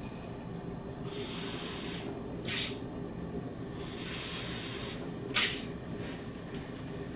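Water from a kitchen faucet running in short spells as something is rinsed out under it, with two brief, louder splashes about two and a half and five and a half seconds in.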